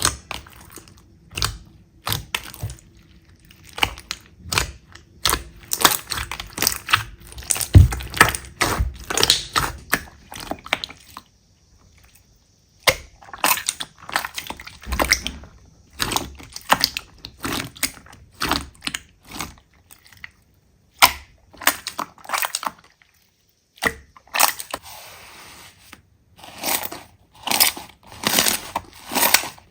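Slime being squeezed and pressed by hand, giving quick, irregular crackles, clicks and pops, with a brief break in the sound partway through.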